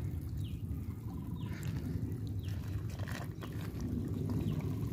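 Water trickling and splashing as a gill net is handled and small fish are picked from it by people standing in shallow water, over a steady low rumble.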